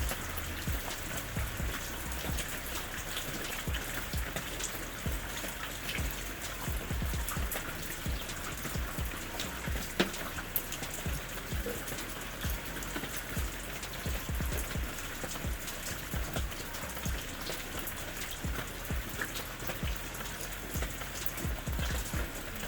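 Steady rain falling on a hard surface, with individual drops ticking throughout and one louder drop about halfway through.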